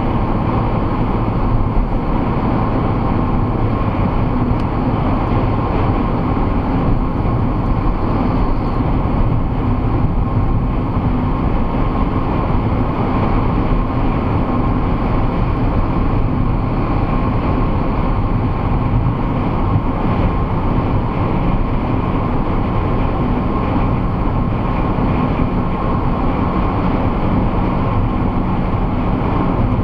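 Steady road and engine noise inside a car cruising at motorway speed, picked up by a dashcam's built-in microphone.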